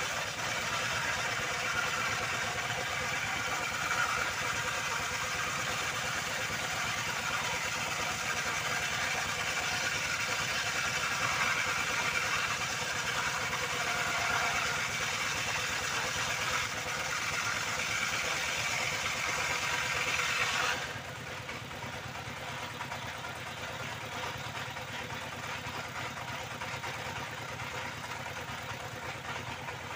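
Powered circular saw cutting old reclaimed timber, a steady whine and hiss. About two-thirds of the way through, the hiss drops away and the saw runs on more quietly, as the blade comes out of the wood.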